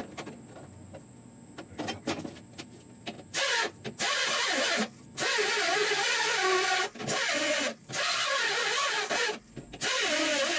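A hand-held power tool worked on the steel vent pod in a truck dash, run in six harsh, noisy bursts of about half a second to two seconds each, starting about three seconds in.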